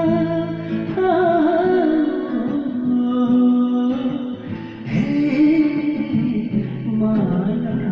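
A sung song: a voice holding long notes and humming over guitar accompaniment.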